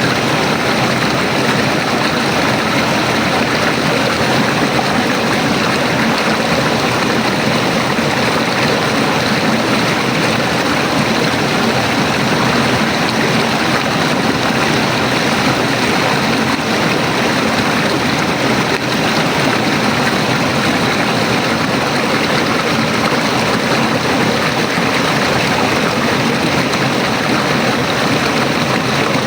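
River water flowing and rushing over stones, a steady, loud, even rush with no change.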